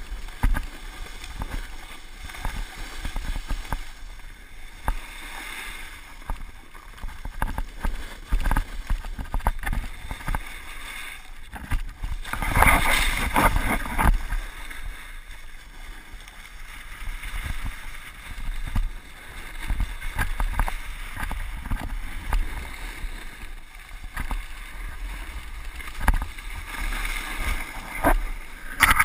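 Snowboard sliding and carving over packed snow: a steady scraping hiss broken by many small knocks and chatter from the board, with wind rumbling on the microphone. About twelve seconds in the scrape grows louder for two seconds as the edge digs into a turn.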